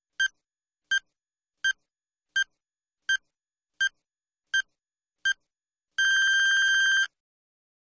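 Countdown timer sound effect: eight short electronic beeps on one high tone, evenly spaced about 0.7 s apart, then one long beep of about a second that signals the countdown running out.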